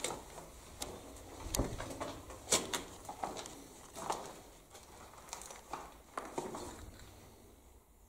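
Scattered footsteps, scuffs and small knocks on a gritty concrete floor, irregular and unhurried, fading away near the end.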